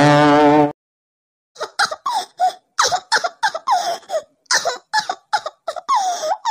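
Intro music stops abruptly under a second in; after a short silence, a girl sobs in short, repeated bursts, each falling in pitch.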